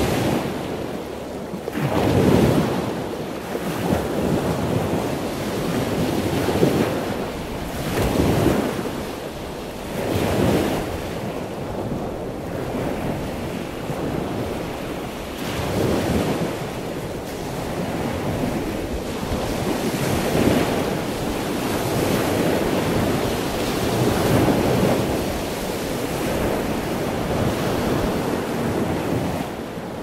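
Ocean waves breaking and washing in, the rush swelling and easing every few seconds.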